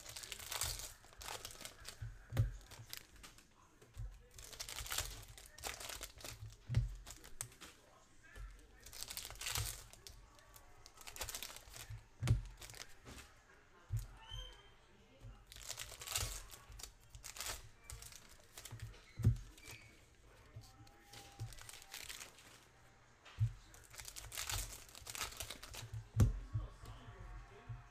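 Foil trading-card pack wrappers crinkling and tearing as packs are ripped open and the cards pulled out, in short rustling bursts every couple of seconds, with soft knocks of cards and hands on the table.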